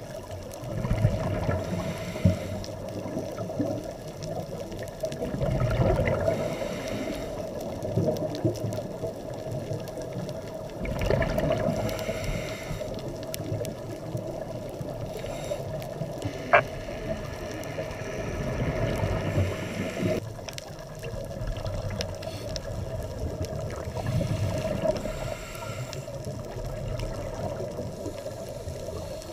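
Underwater sound of a scuba diver breathing through a regulator: a burst of exhaled bubbles every four to five seconds over a steady hum, with a couple of sharp clicks.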